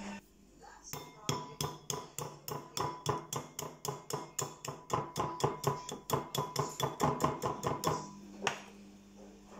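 Metal spoon tapping repeatedly on the shell of an egg cooked in an air fryer, cracking it. The taps come quickly and evenly, about four a second for some seven seconds, each with a short ringing note, then one last tap.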